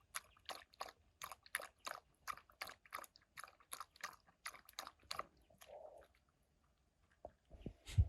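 Footsteps crunching on dry gravelly ground, about three steps a second, stopping about five and a half seconds in, followed by a couple of low thumps near the end.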